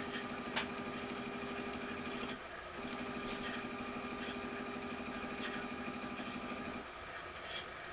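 Stepper motor of a homemade RepRap-style 3D printer driving the X-axis carriage along its rods: a steady whirring tone that stops a little over two seconds in, starts again a moment later and stops shortly before the end.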